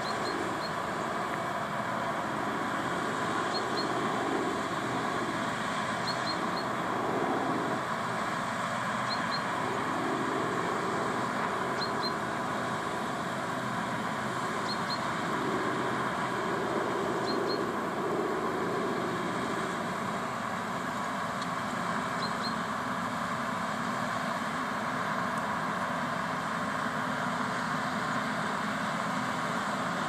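New Holland TX64 Plus combine harvester running steadily while harvesting barley, a continuous even machine drone. A faint high double chirp repeats about every three seconds through the first part.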